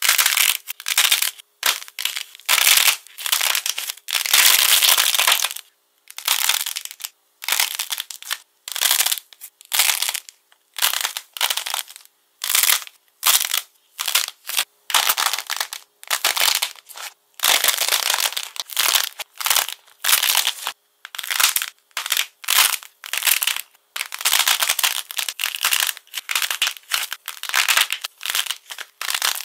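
Hardened glossy coating cracking and crinkling as hands squeeze and peel it off soft clay: a quick run of crisp crunching bursts with short silent gaps between them.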